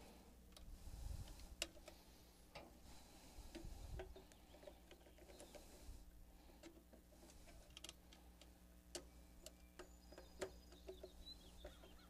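Faint, scattered light clicks and taps of wires and metal terminals being handled while connecting a replacement AC contactor, over a faint steady low hum.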